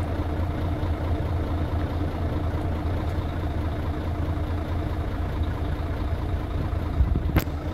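Diesel engine idling steadily with a low, even hum, and two short knocks near the end.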